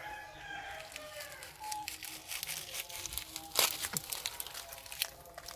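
Dry leaf litter crackling and rustling in short irregular clicks, with one sharper crack about three and a half seconds in.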